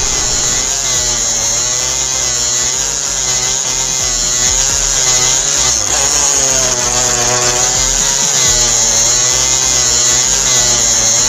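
Small homemade DC-motor hand drill running and boring into plastic. Its whine wavers up and down in pitch as the bit loads the motor.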